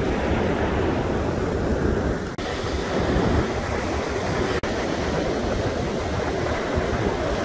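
Ocean surf washing up over a sand and pebble beach, a steady rushing with wind buffeting the microphone; the sound cuts out for an instant twice.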